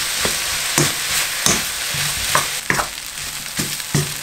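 Rice and prawns sizzling in a hot wok as a spatula stirs them, with repeated scrapes and knocks of the spatula against the pan, about two a second.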